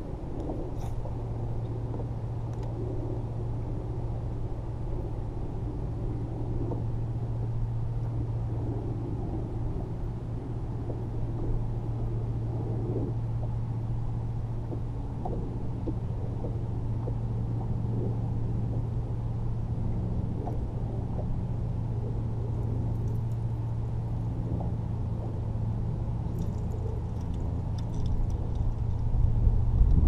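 Electric bow-mounted trolling motor humming steadily with a low, even tone, with faint ticks over it; the sound grows louder near the end.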